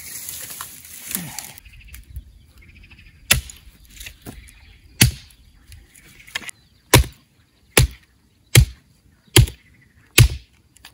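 Axe chopping firewood: a series of sharp chops, spaced unevenly at first, then coming steadily a little under a second apart.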